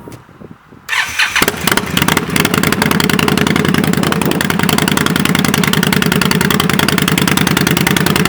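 Victory Octane's 1179 cc V-twin starting through an aftermarket Dirty Bird exhaust: it catches about a second in and settles into a steady, loud idle with a deep rumble.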